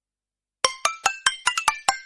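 A Nokia 206 mobile phone ringtone starting about two-thirds of a second in: a quick melody of short, sharply struck notes, about six or seven a second, each ringing briefly and dying away.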